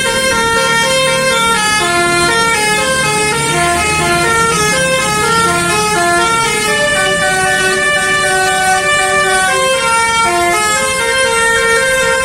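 Basuri telolet multi-tone horn on a Dedy Jaya bus playing a melody, its notes changing every fraction of a second, over a low engine rumble.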